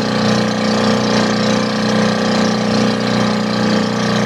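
Fishing boat's engine running steadily underway, an even drone that holds the same pitch throughout.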